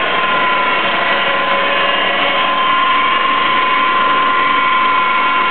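Car engine running with a loud, steady, high-pitched whine and fainter overtones above it, which the owner traces to one of the engine's accessories rather than the engine itself.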